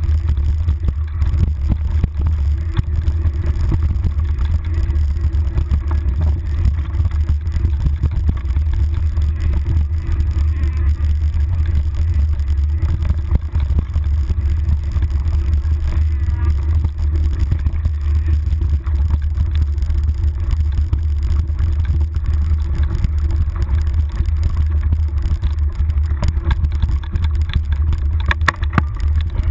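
Mountain bike rolling fast down a dirt trail, picked up by a handlebar-mounted GoPro: a steady low rumble of wind and vibration, with constant rattling and knocks as the bike goes over roots and rocks.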